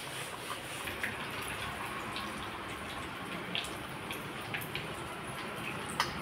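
Battered chicken leg pieces deep-frying in hot oil: a steady sizzling hiss with scattered small crackles, and a sharp click near the end.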